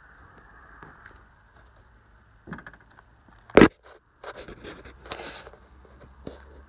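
A single sharp knock about halfway through, followed by a second or so of scuffing and rustling.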